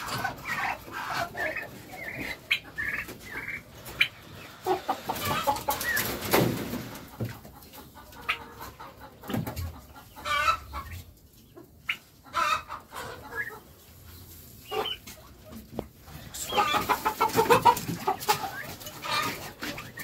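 Chickens clucking in short repeated calls, busiest in the first few seconds and again near the end, with scattered knocks in between.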